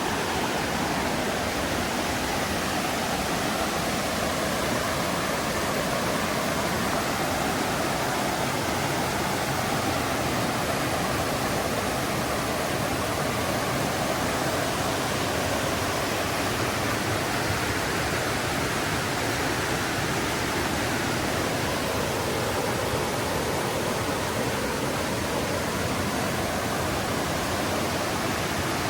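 Mountain river flowing, a steady rush of water.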